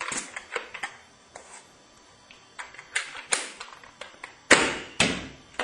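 Spring-powered single-shot Nerf pistol firing mega darts: a run of sharp plastic clicks and clacks as it is primed and fired, the loudest coming past the halfway point.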